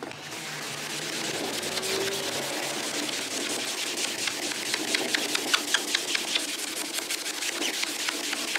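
Melamine foam pad (Magic Eraser) scrubbing a wet, foamy vinyl boat seat cover back and forth: a steady rubbing made of many quick strokes, thickest in the middle and latter part.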